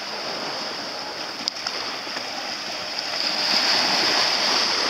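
Shallow seawater sloshing and splashing around wading legs and small sailing dinghies, a steady rushing sound that grows louder about three seconds in. A single sharp click about a second and a half in.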